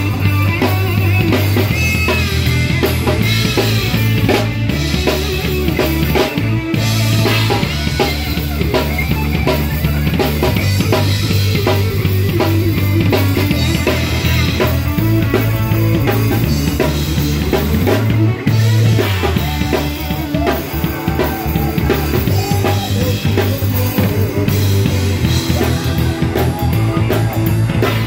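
Live rock band playing loud: a drum kit with bass drum and snare under electric guitar, with heavy low bass notes that shift pitch every few seconds.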